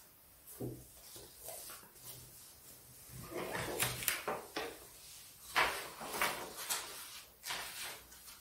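Paper being handled and shuffled on a table: irregular rustling with small sharp knocks, sparse at first and busier from about three seconds in.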